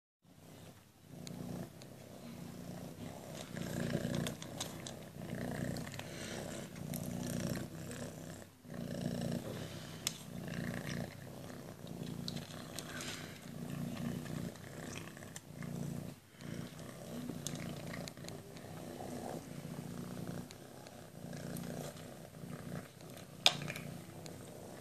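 Domestic cat purring steadily close to the microphone, pulsing in slow even cycles.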